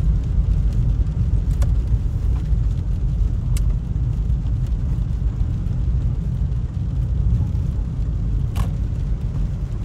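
Car driving on a wet road, heard from inside the cabin: a steady low rumble of engine and tyre noise, with a few faint clicks.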